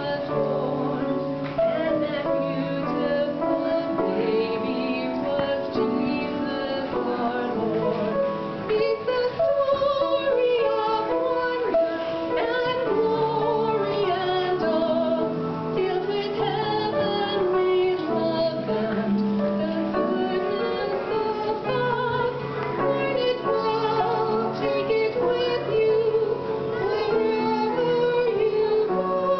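A woman singing solo with vibrato over steady instrumental accompaniment.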